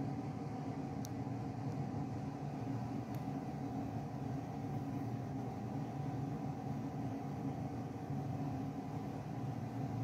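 Steady low hum with a faint hiss, unchanging throughout, with two faint ticks about one and three seconds in.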